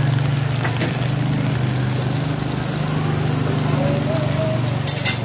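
A steady low hum, with shellfish simmering in broth in a metal pan and a couple of light clicks, about a second in and near the end.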